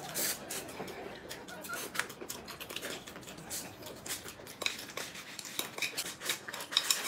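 Close-up eating sounds: stir-fried noodles being slurped and chewed, an irregular run of short smacking clicks.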